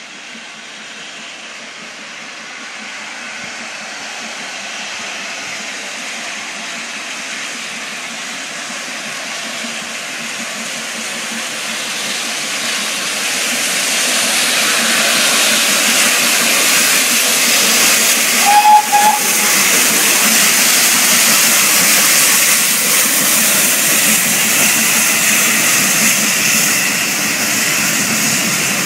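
GWR Castle-class 4-6-0 steam locomotive 'Earl of Mount Edgcumbe' hauling coaches: a steady rush of steam and running noise that grows louder as it approaches and runs past. About two-thirds of the way in there is one short blast on its steam whistle.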